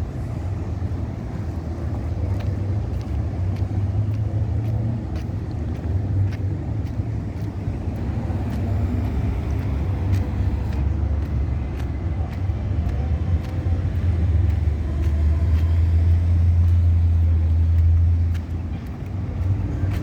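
Busy street ambience: steady road traffic with a heavy low engine rumble that swells for a few seconds late on.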